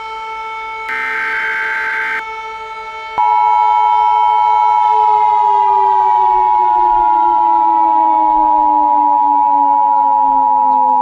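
Emergency Alert System alert sounds. About a second in, a short harsh burst of digital header data plays over a held siren tone. Then, about three seconds in, the loud, steady two-tone attention signal starts and holds, while a civil defense siren underneath slowly winds down in pitch.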